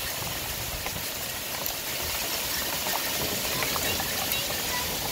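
Hail and heavy rain pelting gravel and grass in a storm: a steady, dense hiss with scattered sharp ticks of hailstones striking.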